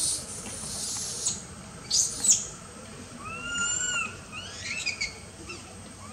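Baby macaque crying: a few shrill screeches in the first two seconds, then arched, whining cries that rise and fall, each under a second long. These are the cries of a hungry baby calling to its mother.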